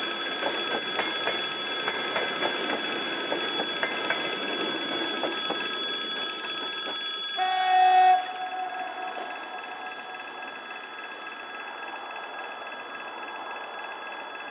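Passenger coaches rolling away on jointed track, their wheels knocking over the rail joints, fading out over the first several seconds. Near the middle comes a short, loud train horn blast that dies away in a trailing echo.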